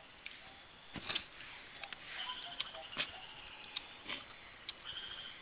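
Steady high-pitched chorus of night insects, crickets, with scattered sharp clicks and taps, the loudest about a second in and again near three seconds.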